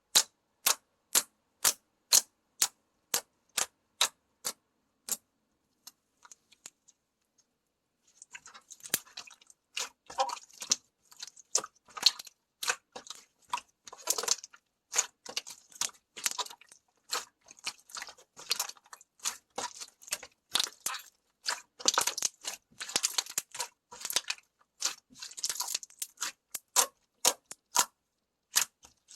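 Slime being worked by hand, making sharp clicking pops about twice a second. After a few seconds' pause comes denser wet crackling and popping, with frequent sharp clicks.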